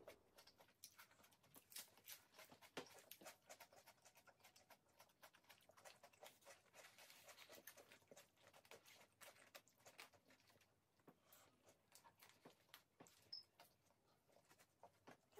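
Faint eating sounds: many small, scattered clicks and crinkles as kebab meat and salad are picked by hand from paper wrappings and chewed.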